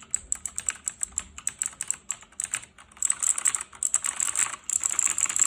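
Razer BlackWidow mechanical keyboard with lubed stabilizers and pudding keycaps being typed on. Separate keystrokes at a steady pace give way about three seconds in to a fast, dense flurry of typing, which stops abruptly near the end.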